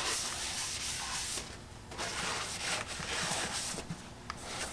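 Paper shop towel rubbing against the walls of a freshly honed cast-iron engine cylinder bore as it is wiped out: two long strokes of about a second and a half each, then a shorter one near the end.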